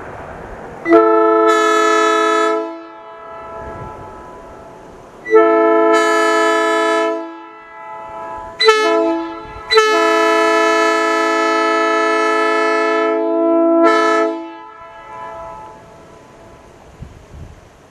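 Locomotive air horn blown from a surge tank, sounding a chord in four blasts: long, long, short, long, the railroad grade-crossing signal. Each blast cuts off sharply and leaves an echo that fades over a few seconds.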